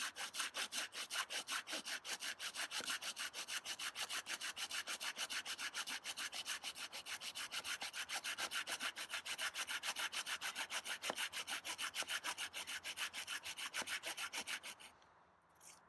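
Folding pruning saw cutting through a dead tree trunk with fast, even back-and-forth strokes, about four or five a second, the teeth rasping through the wood. The sawing stops near the end.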